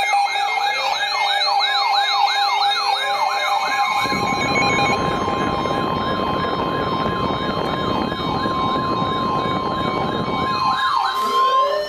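Electronic sirens: a fast yelp rising and falling about three times a second over a steady tone, then several sirens layered into a dense wall of sound from about four seconds in, with a quicker yelp near the end.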